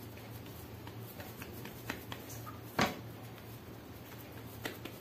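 Hands shaping boiled, mashed potato into a roll over plates: a few soft clicks and taps, one louder tap a little under three seconds in, over a low steady hum.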